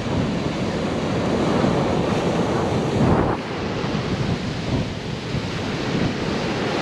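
Small sea waves breaking and washing up a sand and shingle beach, with wind buffeting the microphone; a louder rush about three seconds in.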